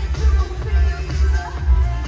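Music with a heavy, pulsing bass line and a melody over it.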